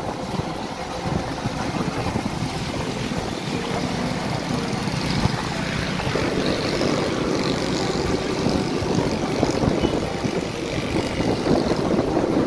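Steady drone of a moving vehicle, engine and road noise together, with wind buffeting the microphone.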